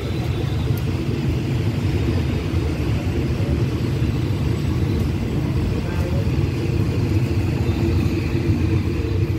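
Railway coaches rolling slowly past the platform as the train pulls out: a steady, low rumble of wheels on the rails.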